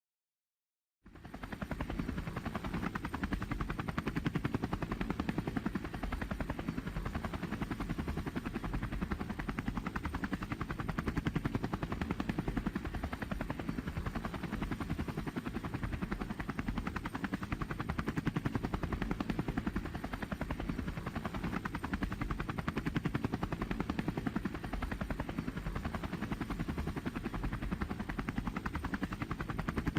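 Black Hawk helicopter in flight, its rotor blades beating in a steady, rapid chop. It starts abruptly about a second in.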